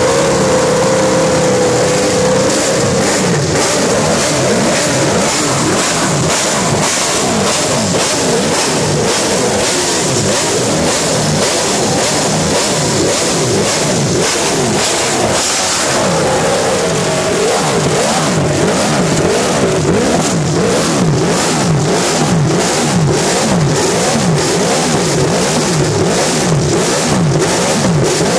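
Ducati Desmosedici MotoGP V4 racing engine running loud, its throttle blipped over and over so the revs sweep up and fall back, the blips coming thicker and faster in the second half.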